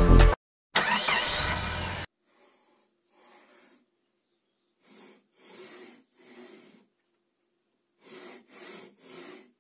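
Music cutting off just after the start, followed by a louder passage that ends about two seconds in. Then aluminium blocks on linear guide carriages pushed by hand along steel rails, a soft rolling rub with each push, about eight short strokes, over a faint steady hum.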